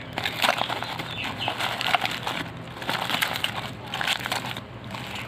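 Plastic mailer bag being torn open and crumpled by hand, with a run of irregular crackles and crinkles.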